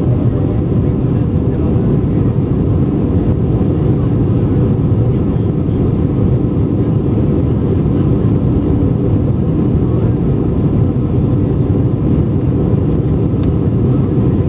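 Steady low drone of engine and air noise inside an Airbus A320-232's passenger cabin in flight.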